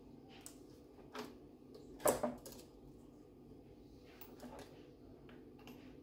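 A few light knocks and clunks as the VR6 engine's valve cover is worked loose and lifted off the cylinder head, the loudest a single clunk about two seconds in, over a steady low background hum.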